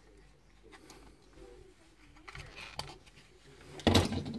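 Quiet handling of a plastic travel adapter on a desk, with a few light clicks and a brief louder knock near the end.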